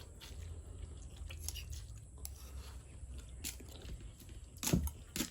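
A person chewing mouthfuls of fried noodles close to the microphone, with small wet mouth clicks, and two louder sharp knocks near the end.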